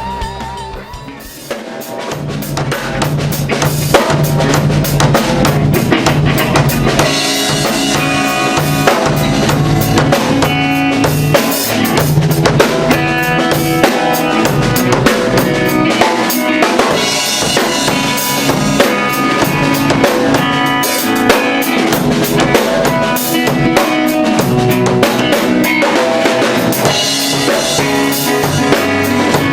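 Rock band playing an instrumental passage on drum kit, bass guitar and electric guitar, with the drums to the fore. The music drops out briefly about a second in, then the full band comes back in and plays steadily.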